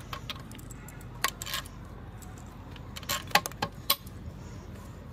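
Metal tools and steel transmission parts clinking and tapping together during gearbox assembly, in short clusters about a second in and again around three to four seconds in, over low background noise.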